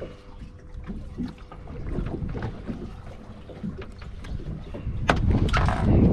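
Wind buffeting the microphone over a low rumble of open-water boat ambience, with scattered light taps and knocks and a sharper knock about five seconds in.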